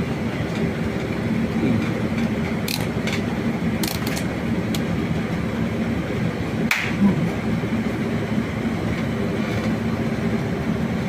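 Steady droning background noise with a low hum, broken by a few short sharp clicks about three, four and seven seconds in.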